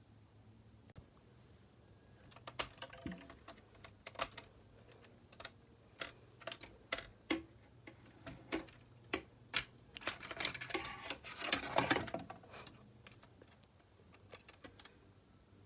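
Hard plastic clicking and rattling of Lego Technic parts, irregular single clicks that thicken into a dense clatter about ten to twelve seconds in.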